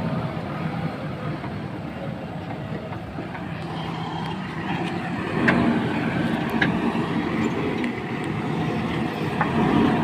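JCB backhoe loader's diesel engine running steadily under working load while the backhoe bucket drags and scrapes soil, with a few short sharp clanks from the arm and bucket in the second half.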